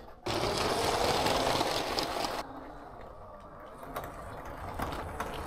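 A small electric Lego train motor and plastic wheels running on plastic track. The motor whine rises in pitch for the first couple of seconds, then drops suddenly to quieter running with a few sharp clicks.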